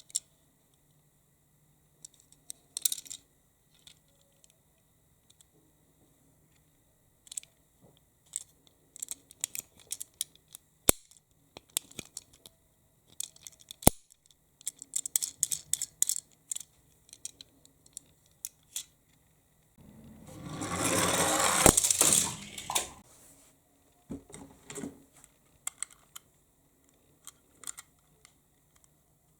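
Toy minicars being handled and set down: scattered small clicks and rattles, with one longer rolling rattle of about two and a half seconds past the middle, as a toy car runs down the slope.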